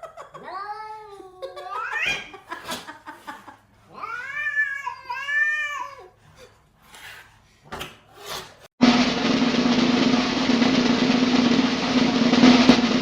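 A cat yowling in two long, drawn-out calls whose pitch bends up and down, with a few sharp clicks between. About nine seconds in, loud music with drums cuts in suddenly.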